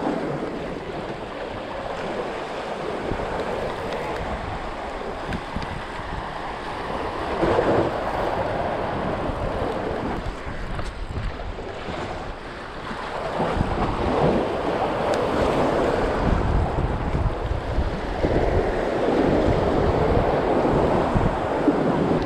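Sea surf washing against jetty rocks, swelling and easing every few seconds, with wind buffeting the microphone as a low rumble that grows stronger in the second half.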